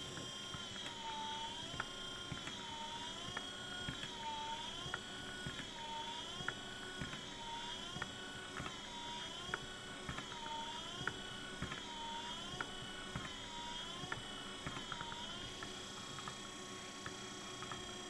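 Car windshield wiper motor under feedback speed control, running with a steady high whine that dips in pitch once each turn, about every second and a half, with a sharp click each turn. The pitch dips fade out near the end, leaving the steady whine.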